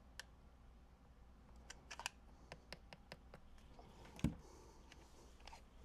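Scattered light clicks and taps of hands working on small parts and wiring, with one louder knock about four seconds in, over a faint steady hum.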